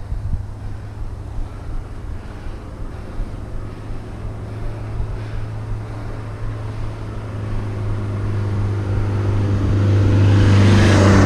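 Steady low rumble of wind and riding noise on a bike-mounted action camera's microphone. A motor vehicle grows steadily louder from about two thirds of the way in, peaking near the end as it approaches.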